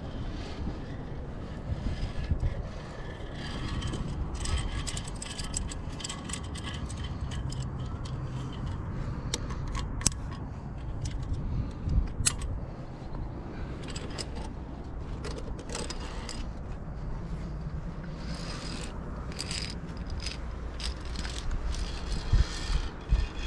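Via ferrata climbing gear in use: metal carabiners clicking and scraping along the steel safety cable and iron rungs, with scuffs against the rock. The clicks come irregularly throughout, over a steady low rumble.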